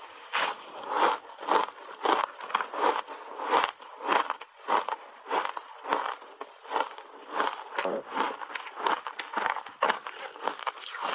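Dry block ice coated in matcha tea and milk powder being bitten and chewed, a steady run of crisp crunches about two a second.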